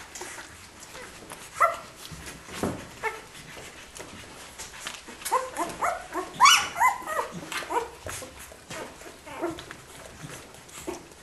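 Week-old Australian Kelpie puppies squeaking and whining in short high calls, a few scattered at first, then a quick run of squeals about five to seven seconds in, with soft rustling of bedding between.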